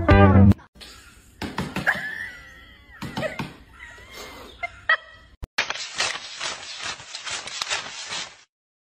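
A stack of paper banknotes being riffled and counted by hand: a fast run of papery flicks and rustles lasting about three seconds, stopping abruptly. Before it come scattered faint clicks and a few short chirping glides.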